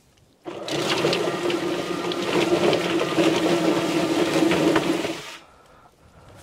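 Drum-style chicken plucker's electric motor switched on, running with a steady hum and a rattling clatter for about four and a half seconds, then shut off.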